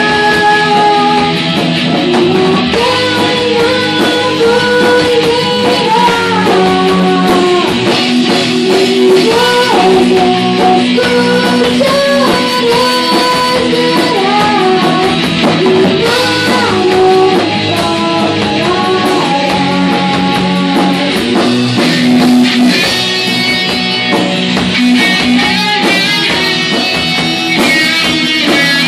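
Rock band playing live: electric guitars through Marshall amplifiers, a drum kit and a sung melody.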